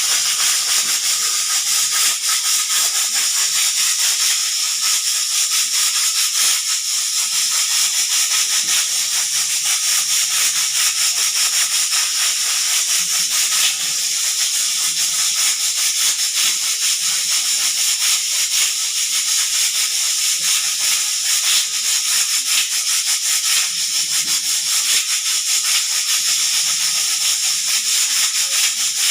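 Pressure cooker whistle venting steam in a steady, loud hiss, with its weight rattling rapidly on the vent.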